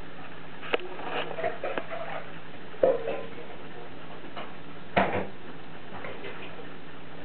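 Steady hiss and low hum of a running space heater, with three sharp clicks or knocks about two seconds apart and a few fainter ticks between them.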